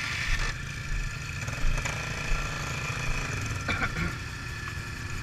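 ATV engines running at low speed, with a steady high whine above the low engine rumble and a few short clatters about four seconds in.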